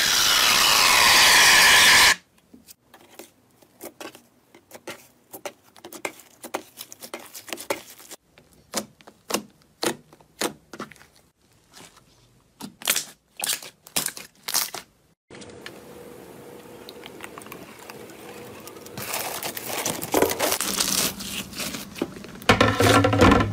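An aerosol can spraying foam onto slime, a loud steady hiss that stops about two seconds in. Then slime being pressed and poked by fingers, a long run of short sharp clicks and pops, and toward the end a crackling, squelching stretch as a soft slime is squeezed and pulled.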